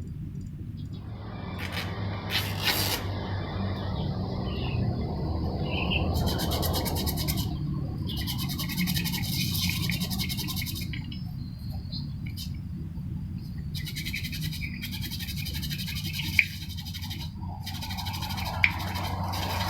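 Rapid scraping strokes on metal in two long stretches over a steady low hum, with two sharp clicks near the end.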